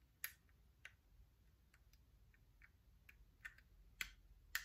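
Small plastic building-set pieces clicking as they are handled and pressed together, about ten scattered sharp clicks, the loudest near the start and in the last second.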